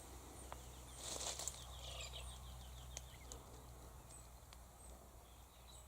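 Faint chirping of birds, with a quick run of short repeated calls about two seconds in, over a low steady hum. There is a brief rustle about a second in.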